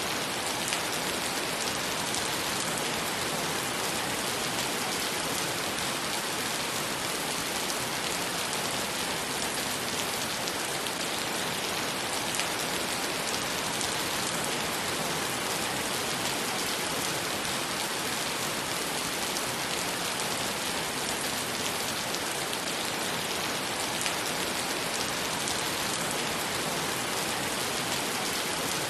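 Rain falling steadily on wet pavement and puddles: an even, unbroken hiss of many drops, strongest in the upper range.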